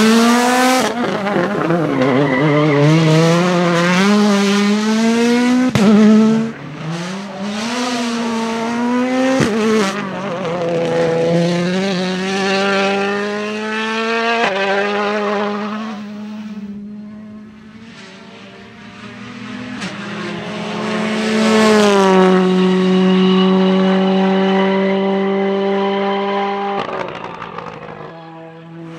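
2017 World Rally Cars with turbocharged 1.6-litre four-cylinder engines driven hard on a stage, the engine note climbing and dropping again and again through rapid gear changes as they pass. The sound cuts abruptly between cars several times, fades briefly about halfway through, then another car builds up and goes by.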